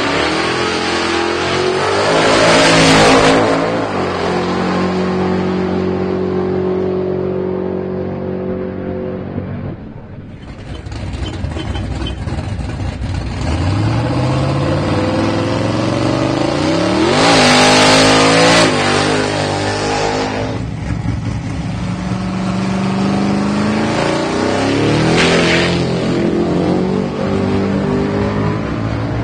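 Twin-turbo small-block Windsor V8 of a drag-racing Ford Cortina, running and revving. The pitch climbs in loud full-throttle runs about 3 s in, around the middle and again near the end, with steadier stretches between.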